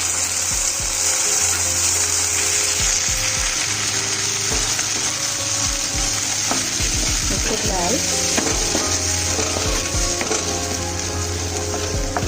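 Tomato puree sizzling loudly as it hits hot oil and browned onions in a pan, with a spoon stirring and knocking against the pan now and then.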